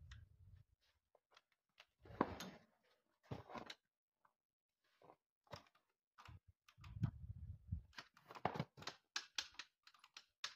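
Faint scattered clicks, knocks and scuffs of hands working at the handlebars and tank of a Jawa 350 motorcycle while its engine is not running, with a short low rumble about seven seconds in.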